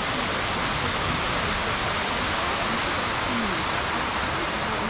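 Steady rush of splashing fountain water, with faint voices far behind it.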